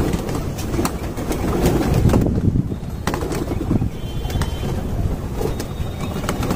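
A large flock of pigeons feeding and flapping at close range: a continuous flutter of wingbeats with scattered sharp clicks and taps.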